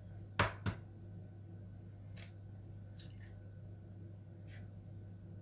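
Eggs being knocked and cracked against a small plastic bowl: two sharp taps about half a second in, then a few fainter clicks, over a low steady hum.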